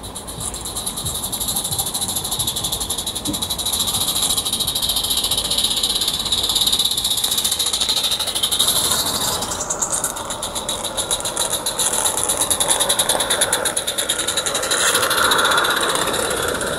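Roundhouse 'Dylan' live steam garden-railway locomotive running light engine, drawing near and passing close with rapid, even beats and wheels running on the track. It is loudest in the middle and latter part.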